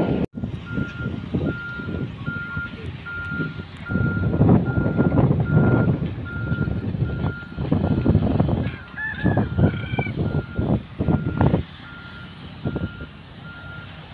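Reversing alarm on a piece of heavy construction equipment, beeping a steady single tone a little under twice a second, over an uneven low rumble of machinery and outdoor noise.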